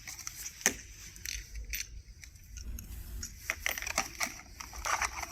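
Blind brackets being handled, giving scattered light clicks and clinks, with one sharper knock about a second in.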